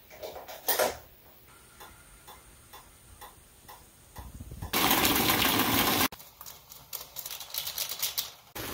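Cooking sounds at an electric stove. A knock about a second in is followed by faint, even ticks about twice a second, then a steady hiss for about two seconds that cuts off abruptly, and light clicks and rustles near the end.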